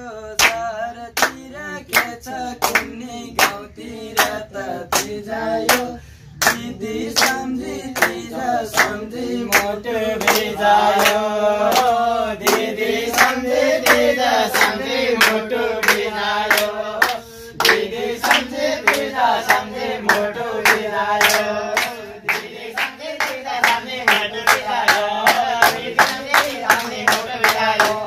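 Group of young men singing a Nepali Teej folk song together, keeping time with hand claps at about two a second.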